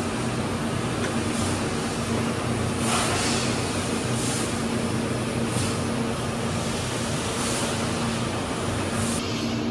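Steady machine hum with a low drone, with light metallic clicks and scrapes every second or two as the aluminium chassis of a fiber laser source is handled and opened with a screwdriver; the clearest clack comes about three seconds in.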